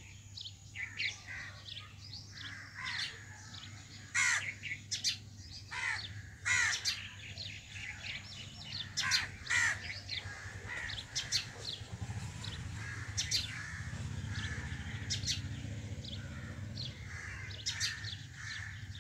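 Birds calling: short, sharp, harsh calls, one after another, sometimes several a second, over a low steady hum that grows louder about two-thirds of the way through.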